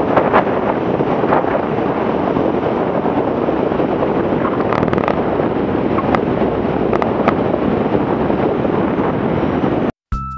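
Steady wind rushing over the microphone of a camera on the wing strut of an Aerotrek A240 moving fast along the runway, with the engine and propeller noise blended into it. It cuts off just before the end, where music starts.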